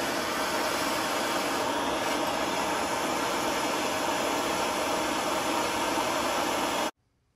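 A steady, even hiss that runs unbroken and cuts off suddenly near the end.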